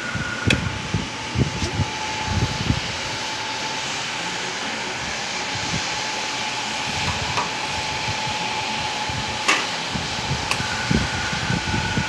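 La Marzocco three-group espresso machine running with a steady hiss. A click about half a second in as a group's brew button is pressed, and a thin steady whine from the brewing stops. The whine comes back near the end as the next shot starts.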